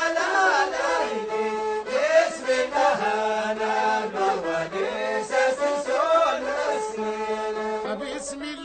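Amazigh rways song in Tashelhit: a voice sings a bending melodic line over steady held tones, without a break.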